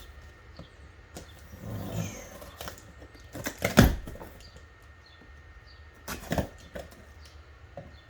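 Cardboard box and packaging being handled and opened: rustling with a few sharp knocks and clicks, the loudest about four seconds in.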